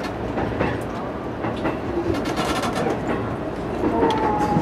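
E233-series electric commuter train running on the rails, with a steady rumble and irregular clicks of the wheels over rail joints. A short high tone sounds near the end.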